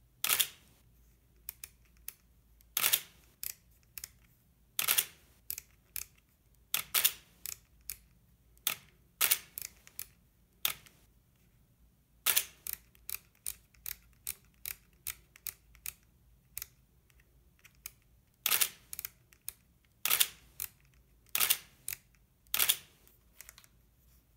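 Canon EOS 3 35mm film SLR firing its shutter about a dozen times, one to three seconds apart. Each release is a sharp mechanical clack of the mirror and shutter with the built-in motor winding the film on. Fainter short clicks of its dials and buttons come in between.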